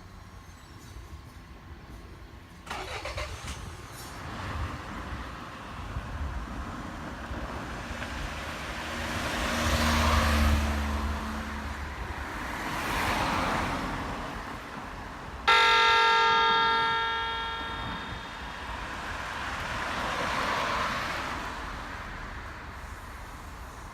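Vehicles passing one after another, each a swell of noise that rises and fades. About two-thirds of the way through comes a loud horn blast, a single steady pitched tone that starts suddenly and fades over a couple of seconds.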